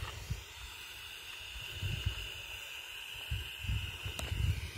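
Pyrotechnic smoke torch burning with a steady hiss, with irregular low rumbles of wind on the microphone.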